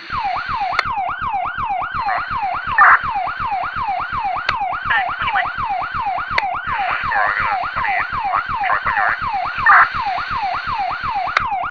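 Police car siren in a fast yelp, its pitch sweeping up and down about three times a second without a break, then cutting off suddenly at the end.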